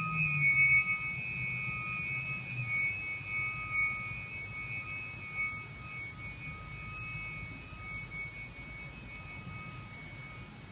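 A pair of hand-held tuning forks ringing together, a few steady high pure tones that slowly fade, with a faint low hum beneath.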